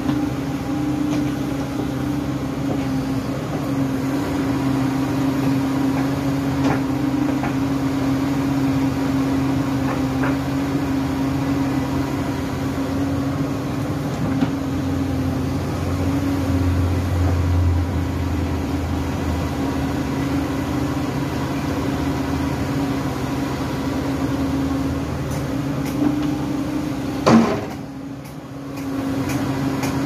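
SANY SY135C crawler excavator's diesel engine running with a steady hum while it digs, its low rumble deepening for several seconds midway as the machine works. A few light clicks and one sharp knock near the end, after which the sound dips briefly.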